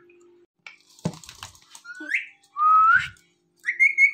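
Indian ringneck parrot whistling: short upward-gliding whistles, then a steady, higher whistle starting near the end. A knock and a few clicks come about a second in.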